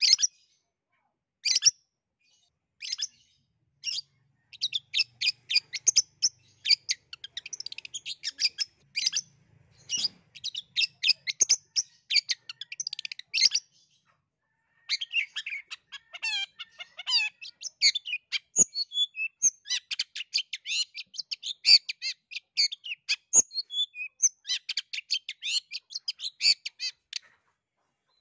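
Long-tailed shrike (cendet) singing vigorously: long runs of rapid, high chattering notes with some falling whistled sweeps, broken by a pause of about a second around halfway. The song stops about a second before the end.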